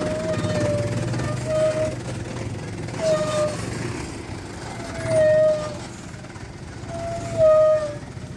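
A vehicle engine running with a low rumble, with a series of short high-pitched tones over it, the loudest about five and seven and a half seconds in.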